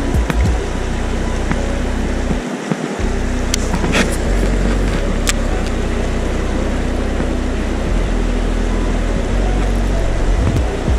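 Steady rushing water of a stream, with a heavy low rumble that comes and goes and a few sharp clicks, the clearest about four seconds in.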